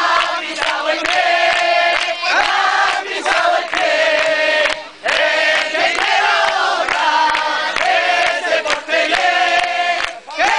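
Loud live singing: a male lead singer on a microphone with a band, crowd voices joining in, and rhythmic handclapping. The singing breaks off briefly about halfway through.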